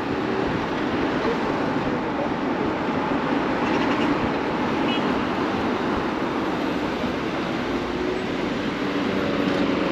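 Steady rush of wind and road noise from riding an electric bicycle in city traffic, with the sound of surrounding vehicles.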